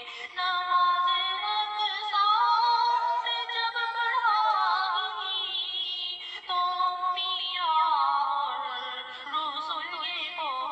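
Background song with a woman singing long, wavering held notes over music.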